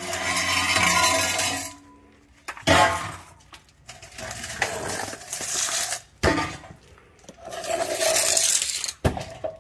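Metal clanking and scraping as old exhaust pipe and brackets are worked loose, with a few sharp clangs spread through it.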